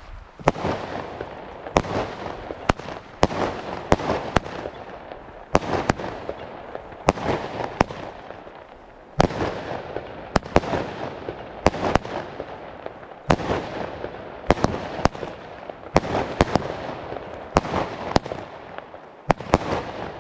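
Infinity Fire fireworks battery firing shot after shot: a quick run of sharp bangs, nearly two a second, with a noisy rush between them.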